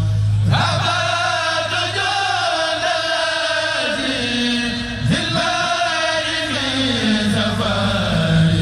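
Male voices of a Mouride kourel chanting a khassida in unison. There are two long melodic phrases that start high and slide downward, between lower held notes at the start and near the end.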